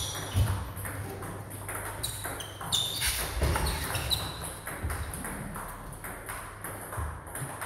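Table tennis balls striking bats and bouncing on tables: a series of short, irregular clicks and high pings.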